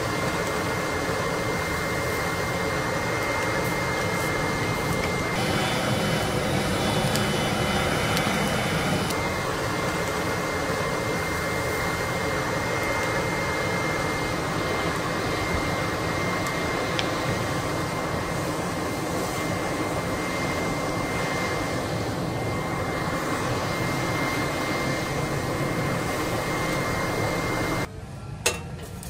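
Electric air blower forcing air through a pipe into a wood-fired brick forge: a steady rushing of air and fire over a thin, constant motor whine. It cuts off shortly before the end, followed by a single brief knock.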